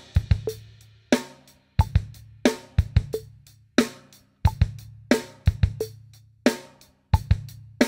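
Acoustic drum kit playing a punchy rock groove: kick drum hits with a snare backbeat and cymbal or hi-hat strokes, in a steady rhythm of sharp, ringing hits.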